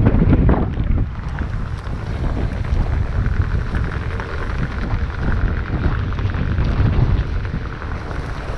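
Wind buffeting the microphone during a Onewheel XR ride: a heavy, gusty rumble, loudest right at the start.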